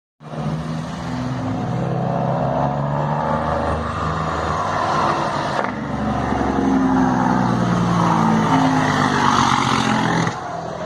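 International truck's diesel engine running loud: a deep, steady drone whose pitch shifts slightly. It breaks off abruptly about halfway through, picks up again and drops near the end.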